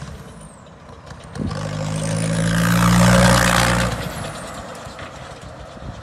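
TDI diesel car driving past under throttle: its engine drone and exhaust hiss swell to a peak about three seconds in, then fade as it pulls away.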